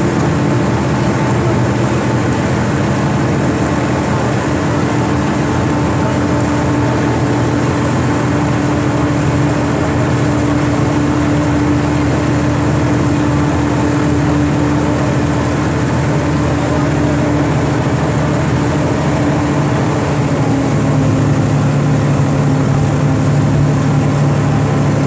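Cross-river ferry's diesel engine running steadily under way, with water and hull noise beneath it. About three-quarters of the way through, the engine note shifts and grows a little louder and deeper.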